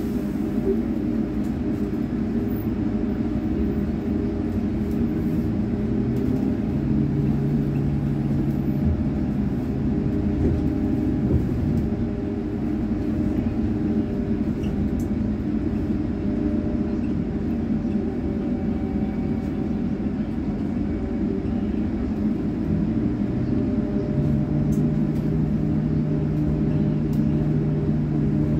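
Running noise heard from inside a city public-transport vehicle as it stops and drives along a street. A steady rumble is heard, and a low drone from the drive comes in around six seconds in and again near the end.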